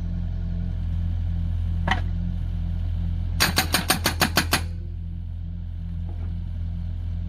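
Excavator's diesel engine running steadily. There is a single knock about two seconds in, then near the middle a quick burst of about nine blows from its hydraulic breaker hammering into firewood logs.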